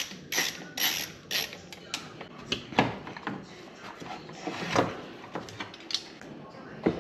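Mechanical clicking and clatter: a run of sharp clicks about two a second at first, then irregular clicks and knocks.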